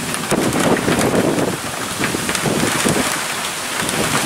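Gusty storm wind buffeting the microphone in uneven surges, over a steady hiss of rain.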